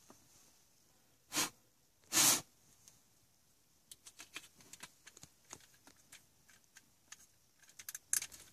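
Two breath sounds, a short sniff and then a longer sigh-like exhale, close to the microphone. They are followed by a run of light plastic clicks and taps as the MMI control circuit board and its plastic console housing are handled and fitted together.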